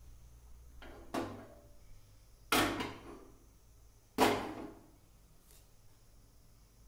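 Three sharp knocks with a short ringing tail, each louder than the last, as a wooden chopping board and utensils are handled and set down on a stainless steel stovetop, over a low steady hum.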